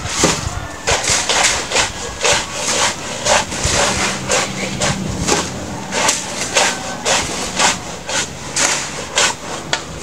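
A long-handled hand tool striking and scraping into soil and roots as a man digs: a steady run of short gritty chops, about two to three a second.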